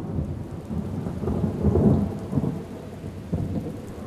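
Thunder rumbling over heavy rain, swelling about two seconds in and then easing off.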